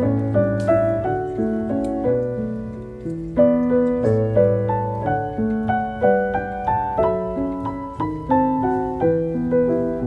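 Background piano music: a melody over a low bass line, each note struck and then fading.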